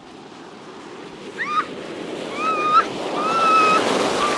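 A sled sliding down an icy slope, a scraping hiss that grows louder through the run. A rider gives three high-pitched yells, starting about a second and a half in.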